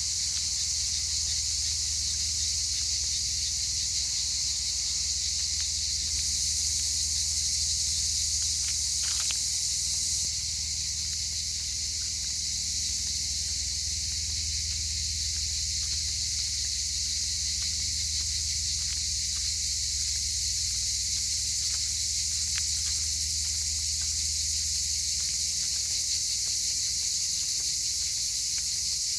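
Chorus of cicadas: a loud, steady, high shrill hiss that barely changes, growing a little brighter for a few seconds early on. A few faint ticks and a low hum sit underneath.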